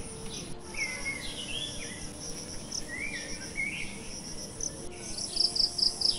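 Insects trilling steadily, high-pitched, while birds call with short rising chirps; near the end a quick run of about five high notes stands out.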